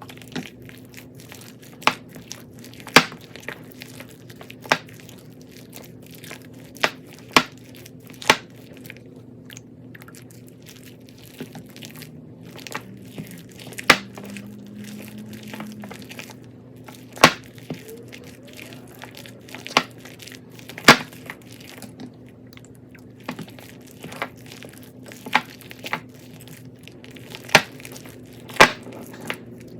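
Crunchy bead-filled slime being pressed and worked by hand, giving sharp, irregular crackling pops every second or two, some much louder than others, over a low steady hum.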